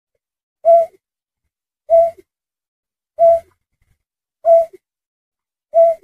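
Snipe (berkik) lure call, a played-back recording used to draw birds in: a short hooting note repeated at a steady pace about every 1.3 seconds, five times, each followed by a faint lower note.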